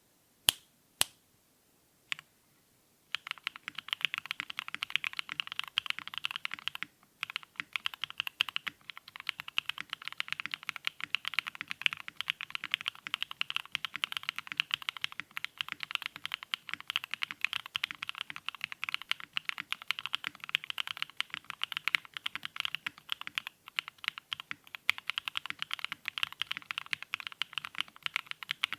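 Typing on a plateless GOK 7V custom mechanical keyboard with L+F Black Cherry Pies switches and cherry-profile ABS keycaps, PE foam and tape modded. A few separate keystrokes come first, then steady, rapid typing from about three seconds in, with two brief pauses.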